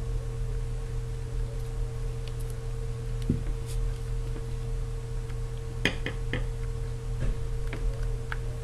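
Steady electrical hum with a few faint, small clicks and ticks from a pentalobe screwdriver turning the two bottom screws of an iPhone 4S and handling the phone's metal edge.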